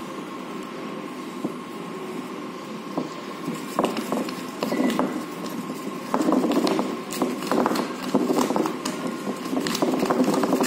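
Thermal receipt paper being wound tightly by hand around a marker pen as its core: rustling and crinkling of the paper with irregular clicks and scrapes, which grow busier and louder from about the middle. A faint steady high tone hums underneath.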